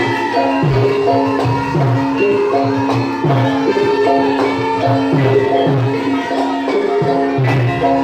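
Music: a steady held tone under short melodic notes, with a drum beat whose low strokes slide down in pitch roughly once a second.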